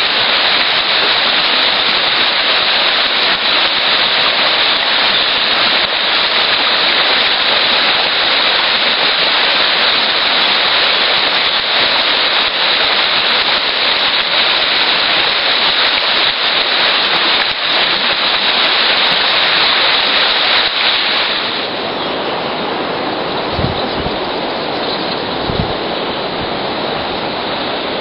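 Steady loud rush of river water running through shallows. About three quarters of the way through it drops a little in level, and two soft low thumps follow.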